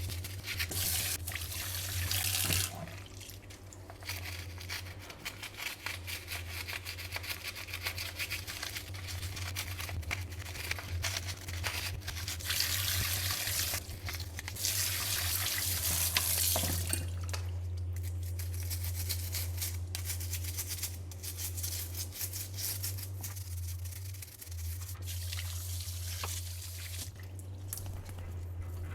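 Tap water running and splashing in a sink while the disassembled blender base's parts are scrubbed and rinsed, the water swelling and easing as things move under the stream, over a steady low hum.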